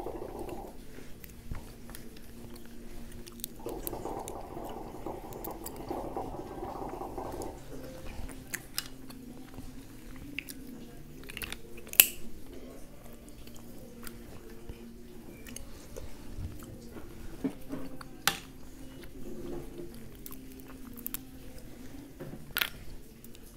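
Mussel shells clicking and snapping as they are pried open by hand and the meat pulled out, with chewing and biting between them. Three sharper clicks stand out, about halfway through, about three-quarters of the way and near the end.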